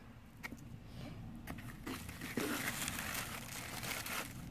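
Shredded paper packing rustling and crinkling inside a cardboard box as a hand digs through it, after a few light clicks at first; the rustling gets thicker about two seconds in.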